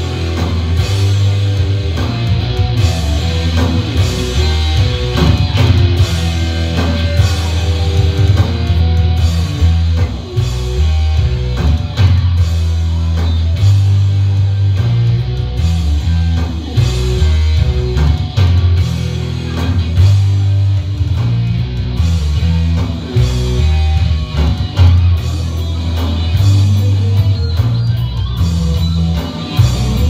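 Live rock band playing: electric bass, electric guitar and drum kit, with a heavy bass line and steady drum hits throughout.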